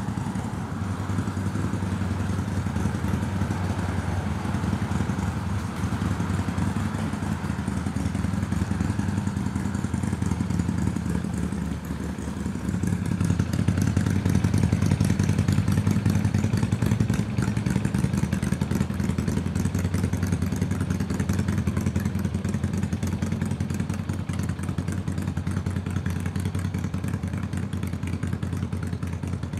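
A motor engine running steadily with a low, even hum and rapid pulsing, growing louder about halfway through and easing off again near the end.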